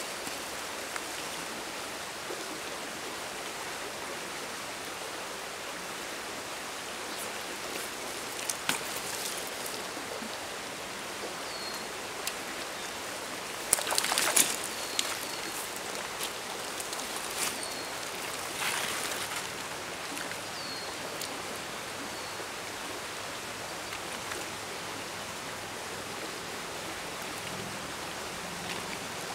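Small stream running steadily. A hooked wild brown trout splashes at the surface in a burst of several strikes about halfway through, and splashes again a few seconds later.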